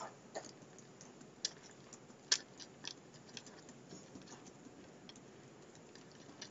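Computer keyboard being typed on: a dozen or so soft keystroke clicks at uneven gaps, one louder keystroke about two seconds in.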